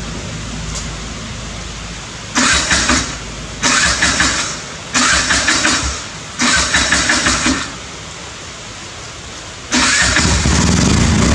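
Steady rain, then a vehicle engine cranked in four short bursts a second or so apart, each with a rapid chugging pulse. Near the end the engine catches and keeps running.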